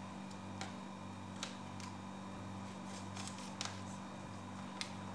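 Scattered small clicks and taps from hands working at a cooking pot as frozen dumplings are added one by one, over a steady low hum.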